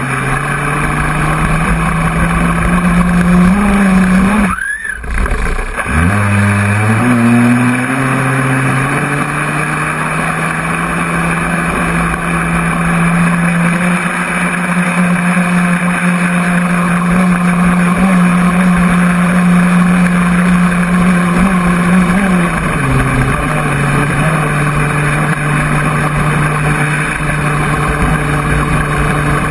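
Overlander 5045 720KV brushless outrunner motor on 6S, driving a 3D-printed jet drive in an RC model jet boat and heard from on board: a steady electric motor whine over rushing water. About five seconds in the motor note drops out briefly and then rises back up. About three-quarters of the way through it settles to a slightly lower steady pitch.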